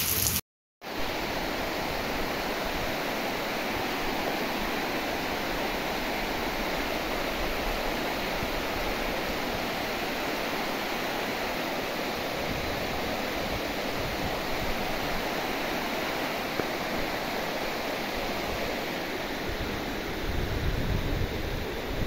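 Steady rushing of muddy floodwater flowing over and along a dirt road. The sound drops out briefly about half a second in, then comes back even.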